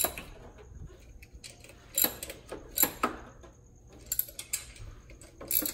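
Irregular metallic clicks and clinks from hands handling parts and hand tools in a car's engine bay, with the loudest knocks about two and three seconds in.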